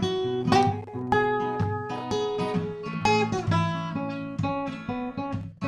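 Acoustic guitar background music: a run of plucked notes and light strums, each note ringing on and fading.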